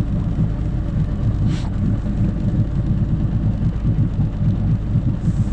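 A boat's motor runs steadily at trolling speed, giving a continuous low rumble.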